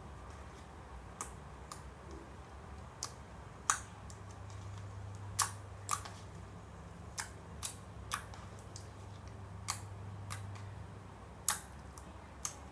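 Clear water slime being poked and pressed by fingertips, giving sharp wet clicks and pops, about a dozen at irregular intervals, over a low steady hum.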